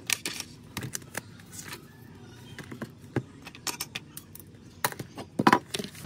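Irregular clicks and clinks of small hard objects being handled, with the loudest cluster near the end.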